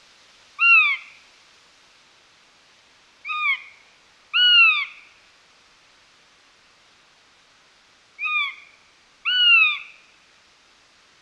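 A bird's calls: five short, clear notes that rise and fall in pitch. A single call comes first, then two pairs of calls a few seconds apart, over faint background hiss.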